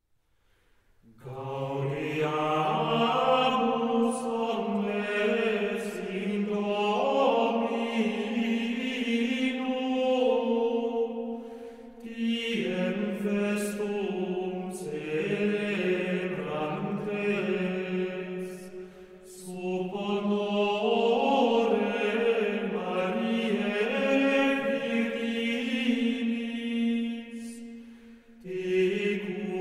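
Medieval plainchant sung by voices, starting about a second in out of silence. It moves in long phrases with short breaths between them.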